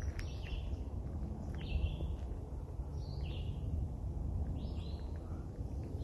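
A songbird repeating a short, slurred call about every second and a half, over a steady low rumble.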